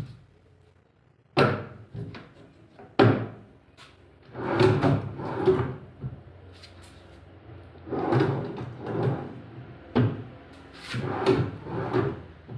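Wooden knocks and scraping clatter, like wooden parts being handled and slid against each other. There are two sharp knocks, then several longer rattling, sliding runs.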